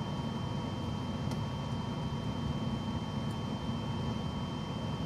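Steady low hum of an idling car heard from inside its cabin, with a faint steady high whine above it.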